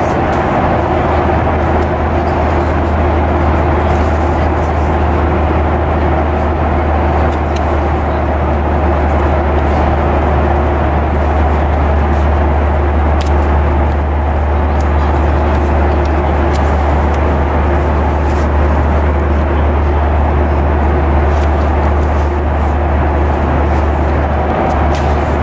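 Steady cabin drone of a Boeing 737-900ER, a strong low hum with a couple of steady tones above it, overlaid by scattered crackles and rustles of paper as magazine pages and a safety card are handled and turned.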